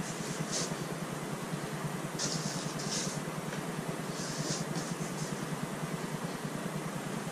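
Clothes and plastic bags rustling as they are handled and packed into a cardboard box, in several short bursts, over a steady low hum.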